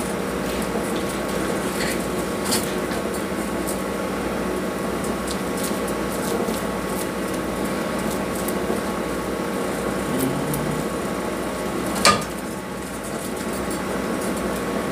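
A serving spoon scooping sticky rice out of a saucepan and onto a plate, with light scrapes and taps and one sharp clink about twelve seconds in, over a steady whirring hum.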